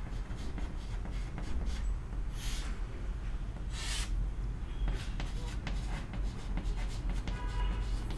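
Chalk writing on a chalkboard: short scratchy strokes and light taps, with two longer scraping strokes about two and a half and four seconds in. A low steady hum runs underneath.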